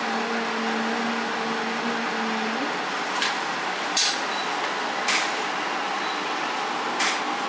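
Camera shutter clicking four times over a steady hiss of room noise. A low hum stops about two and a half seconds in.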